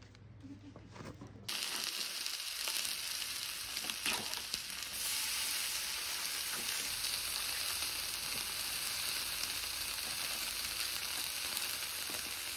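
Food sizzling in a hot pan, starting abruptly about a second and a half in and then running as a steady hiss.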